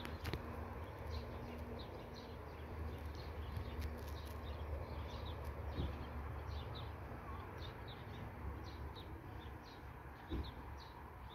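Quiet open-air ambience after the church bells have stopped swinging: the last faint hum of a bell dies away over the first eight seconds or so. Rapid high chirps, about three a second, run over a low steady rumble, with a brief thump near the end.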